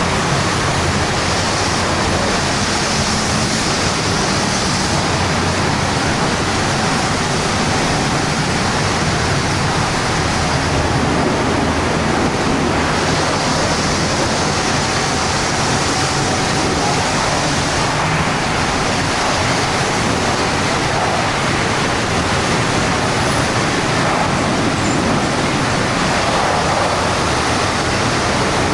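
Steady, loud rushing noise of a car wash workshop.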